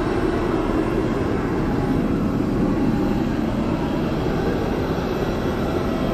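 Steady rumble and whine of aircraft engines running on the airport apron, holding at an even level throughout.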